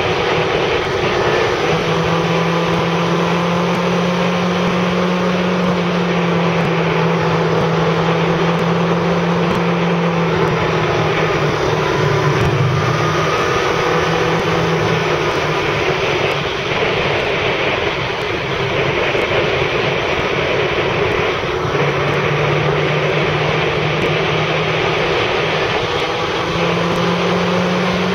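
Motorcycle engine running at road speed with wind rushing over the microphone; the engine note steps up and down in pitch a few times as the bike speeds up and slows through the curves.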